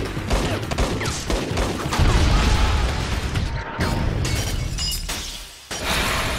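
Film shootout sound effects: a dense run of gunfire and impacts, then glass bottles shattering under bullet hits, with a fresh loud burst of breaking glass near the end.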